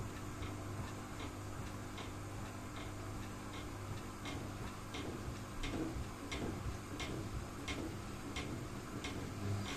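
Edesa front-loading washing machine with a broken drum spider, its drum turning slowly with the laundry. The motor hums steadily under a light, regular click about every 0.7 s.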